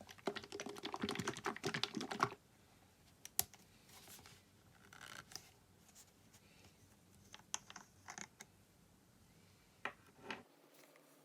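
A fast clatter of small sharp clicks for about two seconds, then scattered single clicks, taps and short scrapes, the sound of small parts being worked by hand.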